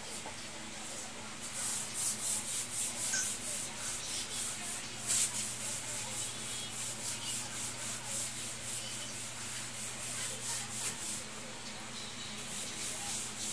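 Wet cloth scrubbing a laminate floor by hand in quick, rhythmic back-and-forth strokes, starting about a second and a half in and easing off near the end.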